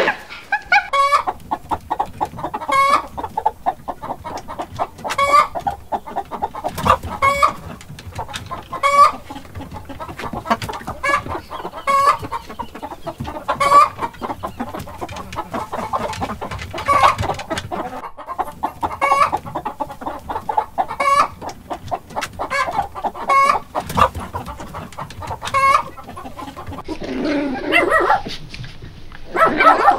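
Chickens clucking, short calls coming about once a second. Near the end dogs start yipping and barking.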